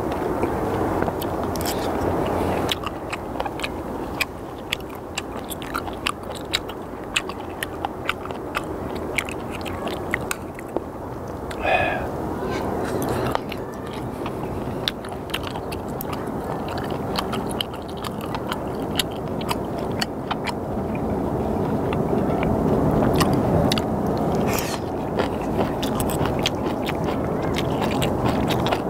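Close-up chewing of sliced raw skate (hongeo), with many small sharp crunches from its cartilage, over a steady low background rumble.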